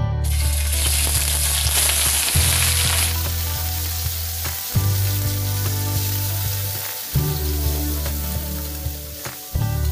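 Raw pork pieces dropped into hot cooking oil in a wok, sizzling loudly for the first three seconds, then settling to a steadier, quieter sizzle as they are stirred with a spatula.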